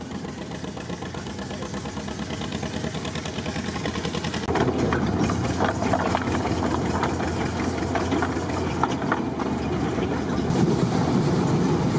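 Small narrow-gauge locomotive running with its train rolling along light rails: a steady engine hum with wheels rattling and clicking on the track. It gets louder and busier about four and a half seconds in.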